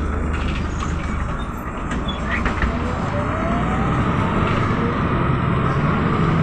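Mercedes-Benz O405 city bus heard from inside the cabin while driving: engine running under road noise. A faint rising whine comes in about a second and a half in, and from about three seconds in the engine note gets louder and deeper as the bus pulls on.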